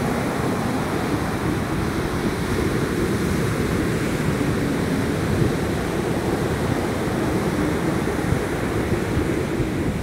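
Ocean surf breaking and washing up onto a sandy beach: a steady rushing noise without pause.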